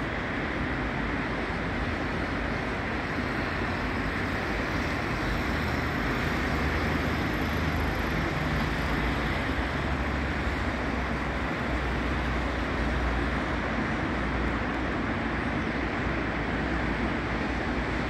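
Steady traffic noise from a busy multi-lane city avenue: a continuous hum of passing cars, with a deeper rumble swelling through the middle.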